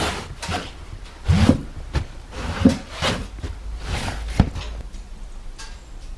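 Handling noise from a camera being carried and set down: a string of knocks and rubbing bumps, the sharpest about four and a half seconds in, then quieter.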